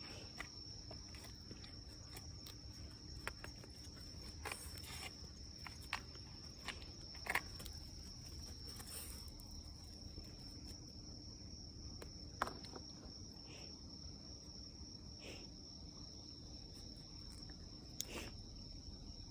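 Steady high-pitched chorus of night-singing crickets. A few short knocks and rustles sound over it, the sharpest about seven and twelve seconds in.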